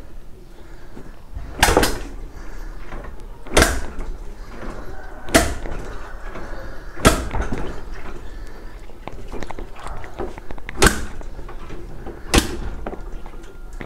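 A motorcycle kick-starter being kicked over and over with the spark plug out, each stroke a sharp clunk, six in all about every one and a half to two seconds, with a longer pause before the fifth. The engine is being turned over to pump carbon cleaner out of the cylinder.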